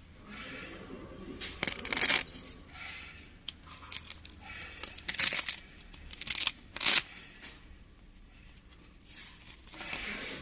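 Black fabric liner and orange steel frame of a folding utility wagon being handled by hand: a series of short rustling noises, the loudest about 2, 5 and 7 seconds in.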